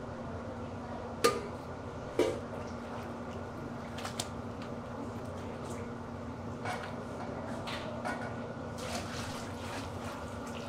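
Stainless steel pan and ladle clanking against a large steel cooking kettle, two sharp clanks about a second and two seconds in and lighter knocks after, over a steady hum. Near the end, sauce is poured from a steel bowl into the simmering broth.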